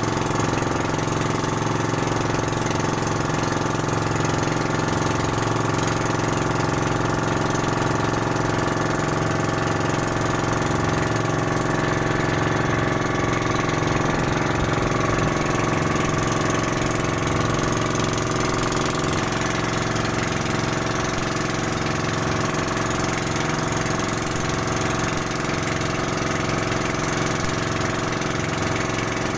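Outrigger boat's engine running steadily at an even speed, heard from on board.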